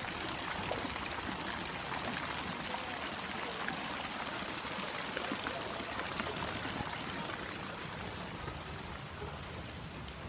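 Water jet from a pool fountain splashing steadily into the pool, a continuous pattering rush that softens a little near the end.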